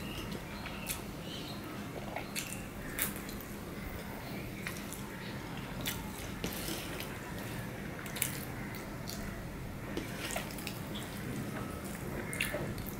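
A person eating rice and curry by hand: wet chewing and mouth clicks, with fingers squishing and mixing rice on a steel plate, coming as irregular short clicks. A steady low hum runs underneath.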